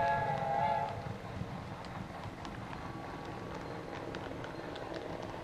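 HO-scale model train's whistle, a chord of several steady tones, cutting off about a second in. After it, a steady low rumble of small wheels rolling on model track with light clicks.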